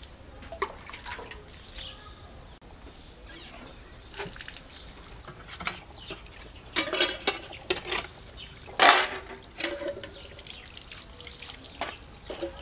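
Water running from an outdoor plastic garden tap in a thin stream onto paving stones, with irregular splashing and dripping and a few louder splashes in the second half.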